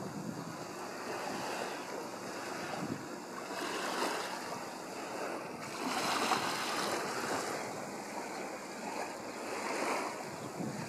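Seaside wind buffeting the microphone over the wash of small Baltic Sea waves, a steady rushing noise that swells and eases every few seconds.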